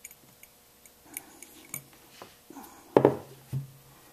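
Small metallic clicks and ticks from handling the parts of a stripped Smith & Wesson Model 29-2 revolver on a towel, with a louder dull thump about three seconds in.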